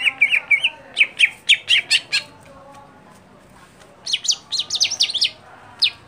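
Male greater green leafbird (cucak hijau) singing in two bursts of quick chirping notes, the second burst higher and made of fast falling notes, with one more note just before the end.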